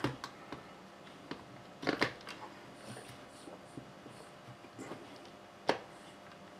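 Small clicks and knocks of an RC crawler's wheel and tire being handled and pushed onto the axle hub by hand: a pair of soft knocks about two seconds in, faint ticks, and one sharp click near the end, the loudest.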